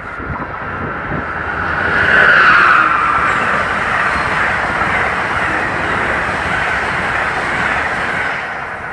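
Amtrak Northeast Regional passenger train passing close by at speed: a loud, steady rush of wheels on rail and moving coaches. It swells to its loudest about two seconds in as the head end goes by, then holds steady as the coaches stream past.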